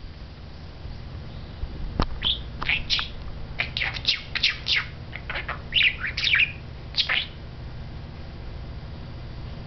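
Pet budgerigar chattering in quick high chirps and warbles, courting its own reflection, with one sharp click about two seconds in. The chatter stops about seven seconds in, leaving only a low steady background hum.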